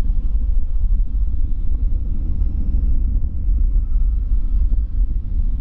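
Steady low rumble of a distant Boeing 787-9 jetliner's engines as it rolls along the runway, mixed with wind buffeting the microphone.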